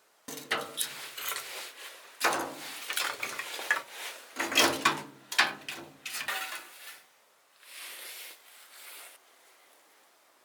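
Objects being handled: a run of knocks, scrapes and rubbing that lasts about seven seconds, followed by a brief rustle near the end.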